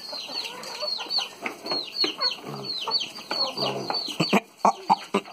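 Chickens clucking and calling in a rapid run of short, high, falling calls, with a couple of low grunts from piglets feeding at the trough about halfway through.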